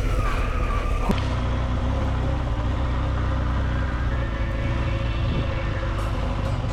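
Adventure motorcycle engine running steadily as the bike rides a dirt trail, heard from a camera mounted on the bike, with the sound changing abruptly about a second in.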